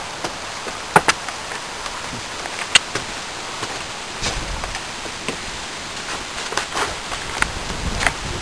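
Rustling and handling noise from a handheld camera carried while walking, over a steady hiss, with a few sharp clicks or knocks about a second in, near three seconds and near the end.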